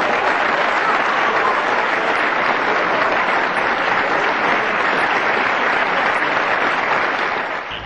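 A crowd applauding: dense, steady clapping that fades away near the end.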